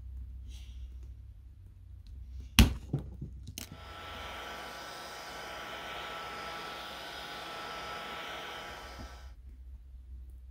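A sharp knock, then an Ozito heat gun running steadily for about six seconds, its fan blowing with a thin steady whine, heating the glass to soften the screen adhesive; it cuts off abruptly near the end.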